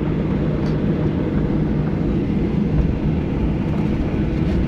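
Steady low rumble and hiss of an airliner cabin on the ground, with the jet engines and cabin air running.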